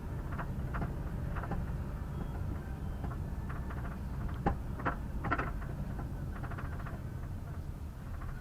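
Irregular sharp knocks, the loudest a little before the middle, over the steady low rumble of a vehicle under way: the knock of a torn-off left rear bearing support.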